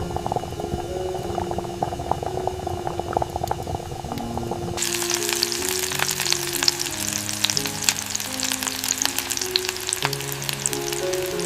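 Food frying in a hot pan. A soft, low crackle changes suddenly about five seconds in to a dense, bright sizzle full of sharp pops. Gentle background music plays underneath.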